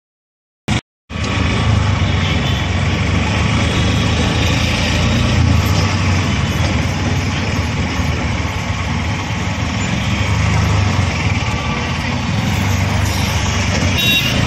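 Small auto-rickshaw engine running steadily under the passenger cabin, heard with the hum and rush of slow city traffic around it. It starts abruptly about a second in.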